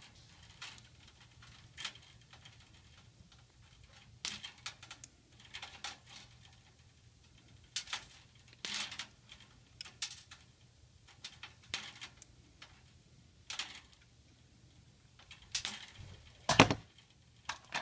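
Hand wire stripper cutting and stripping insulation off the ends of fixture wires: scattered sharp clicks and snaps, with small handling noises between them and the sharpest snap near the end.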